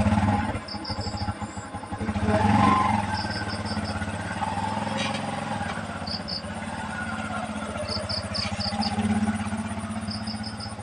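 Small motorcycle engine running steadily, swelling louder briefly about two seconds in, with insects chirping in short repeated bursts.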